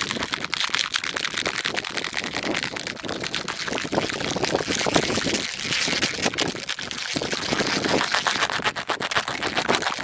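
Rapid, continuous tapping on a plastic kolukattai mold, a dense run of small sharp clicks with no pause.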